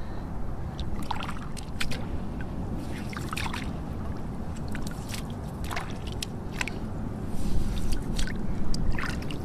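Hands digging through wet sand and shallow water, with short scattered clicks of clam shells knocking together as they are scooped up. Wind buffets the microphone in a steady low rumble.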